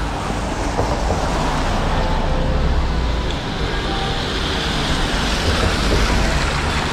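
A car driving past close by on a wet street, its tyres hissing on the wet road, with the hiss building in the second half.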